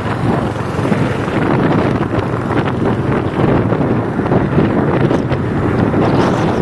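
Steady wind buffeting on the microphone of a Royal Enfield Hunter 350 motorcycle riding at highway speed, with the bike's running and road noise underneath.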